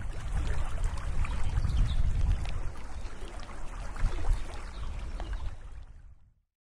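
Outdoor ambience of wind and water: a steady rushing noise with a deep rumble and small crackles, fading out about six seconds in.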